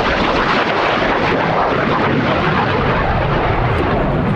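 Loud, steady jet noise from a MiG-17F flying past, its Klimov VK-1F turbojet fitted with an afterburner.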